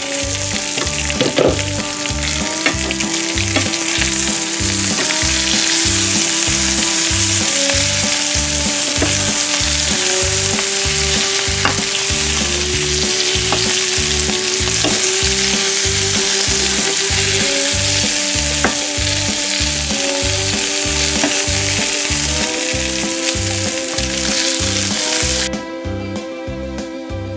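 Brussels sprouts and meat sizzling in a frying pan and being stirred with a spatula, a loud steady hiss that cuts off suddenly near the end. Background music with a steady beat and a simple melody plays throughout.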